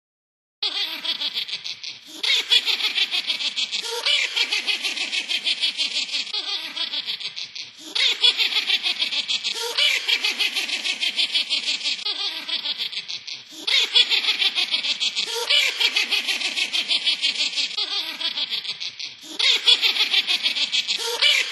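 A witch's high-pitched cackling laugh: rapid 'ha-ha-ha' pulses sliding down in pitch. It repeats in near-identical stretches about every six seconds, like a looped effect.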